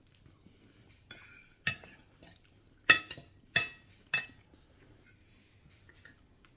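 Cutlery clinking against a plate or dish: four sharp clinks with a short ring, spread over a couple of seconds.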